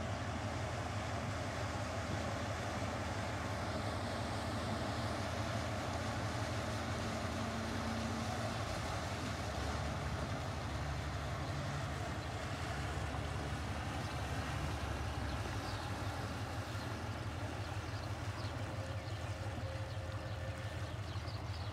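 Small motorboat's engine running as it passes on the river, a low steady drone that strengthens in the middle, over a constant rumble of wind on the microphone.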